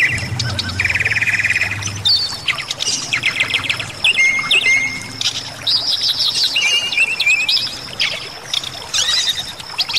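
Bali myna in full song: a fast run of short chattering trills and rattling phrases, one after another with hardly a pause.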